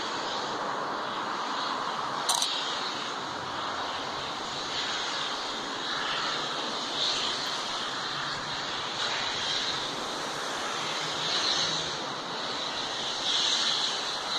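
LMS Princess Coronation Class steam locomotive 46233 Duchess of Sutherland working a train: a steady rushing roar of steam and exhaust that swells and fades every second or two, with a sharp click about two seconds in.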